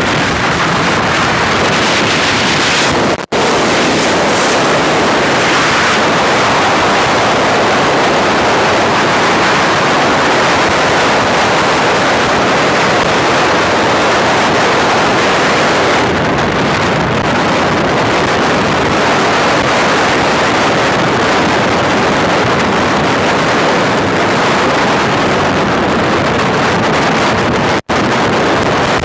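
Loud, steady wind noise buffeting the microphone of a camera on a sport motorcycle moving at road speed. It cuts out for an instant twice, about three seconds in and near the end.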